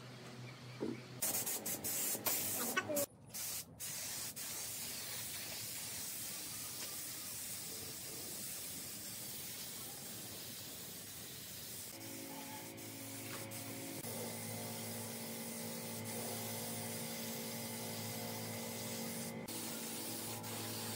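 A compressed-air gravity-feed spray gun hissing steadily as it sprays a finish, after a few knocks of wood being handled. Background music comes in about halfway through.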